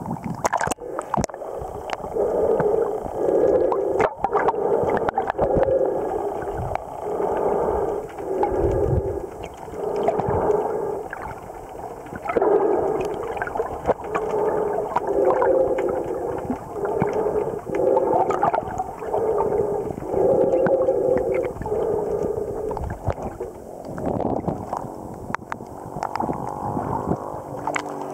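Muffled underwater sound picked up by a submerged camera: a run of short tonal pulses, about one a second, over gurgling water, with scattered sharp knocks. The pulses stop a few seconds before the end.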